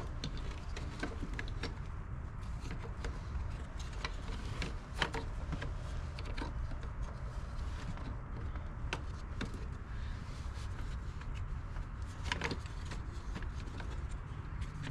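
Scattered sharp clicks and light knocks of hand tools and small parts being handled during mower repair work, over a steady low rumble.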